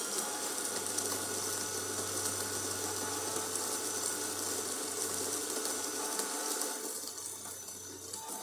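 DeLonghi Magnifica S super-automatic espresso machine running the start of a shot cycle: a steady mechanical whir with a low hum, easing off about seven seconds in.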